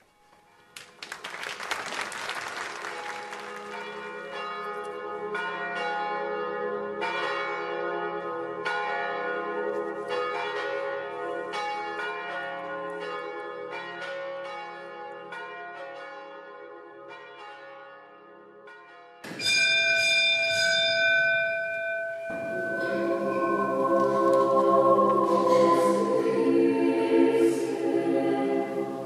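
Church bells ringing, a peal of repeated strikes with many overlapping tones. About two-thirds of the way in it cuts abruptly to a louder ringing tone, and a few seconds later a choir starts singing.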